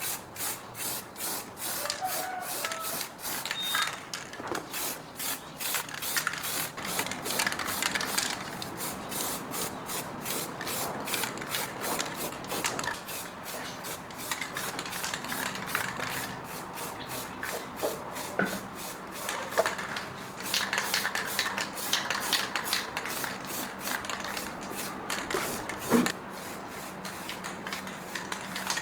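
Rhythmic scraping strokes, about three a second, as in cleaning down a part by hand, with a single sharp knock near the end.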